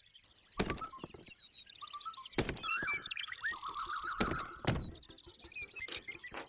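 Four sharp knocks and thuds, with birds chirping between them.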